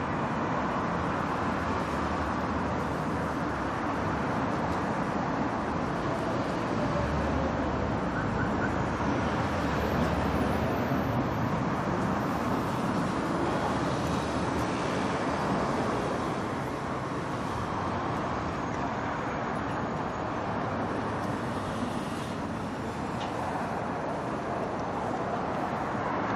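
Heavy city street traffic: a continuous wash of car and bus engines and tyre noise, with engines passing and changing pitch now and then.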